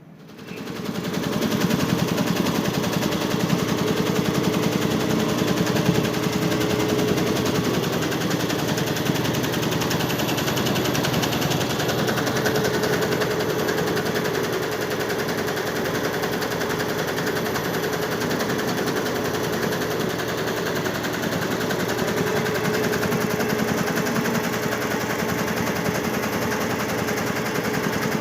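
Computer-controlled embroidery machine starting up and stitching: a fast, dense mechanical rattle of its needle strokes that builds over the first second or two, then runs steady with a faint hum underneath.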